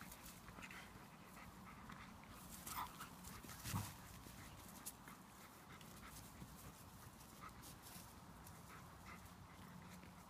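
Two dogs playing tug with a rope toy: faint panting and scuffling, with a couple of sharper sounds about three and four seconds in.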